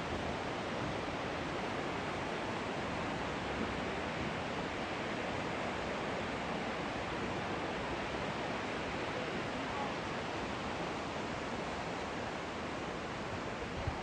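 Steady rushing of flowing water, an even, unbroken wash of sound.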